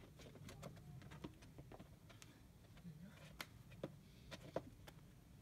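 Quiet, scattered sharp taps and scuffs of a climber's hands and rock shoes on a sandstone boulder as he moves up it, with a few louder taps in the second half.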